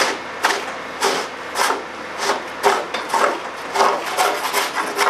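A shovel scraping and chopping at packed snow and ice on the ground, in repeated rough strokes about two a second.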